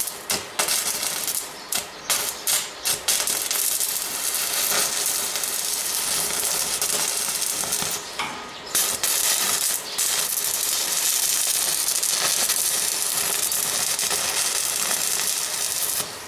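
Electric arc welding: several short crackling bursts, then a long, steady hiss and crackle as a weld is run along the tacked joints of a bar gate frame. There is a brief break a little after eight seconds.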